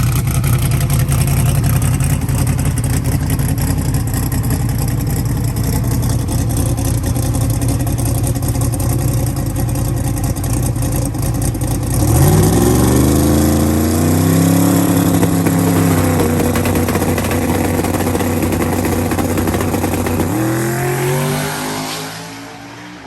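Big-block V8 engine running with a heavy, rough low rumble. About twelve seconds in, the revs rise and hold higher; near the end they climb again and the sound fades away.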